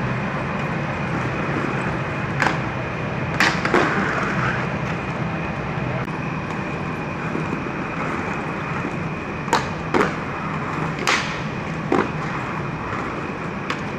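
Aggressive inline skates rolling on pavement, with several sharp clacks of the skates hitting the ground or an obstacle: a couple early and a cluster later, over a steady background hum.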